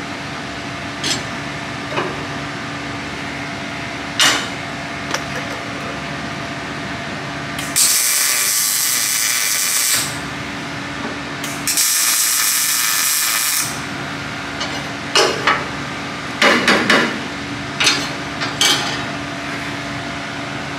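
Workshop tool sounds: scattered sharp clicks and knocks, and two long hisses of air about two seconds each near the middle, over a steady hum.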